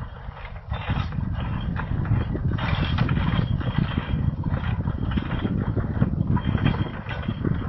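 Horse-drawn carriage driven at a trot over grass: rattling and clinking from the carriage and harness over a steady low rumble that grows louder about a second in.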